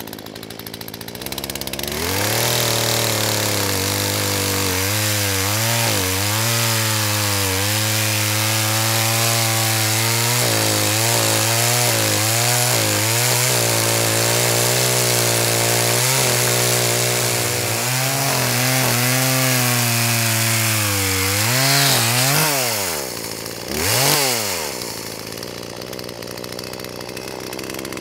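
Poulan Pro PP4218AVX two-stroke chainsaw revving up from idle and cutting through a log at full throttle, its pitch dipping and recovering again and again as the badly worn, dull chain struggles in the wood, though the engine itself runs well. About twenty seconds in the revs drop off, it revs once more briefly, then settles back to idle.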